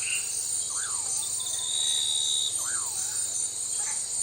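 Tropical forest ambience: a dense, steady chorus of insects with a bird repeating a swooping call about every two seconds, and a short high whistle near the middle.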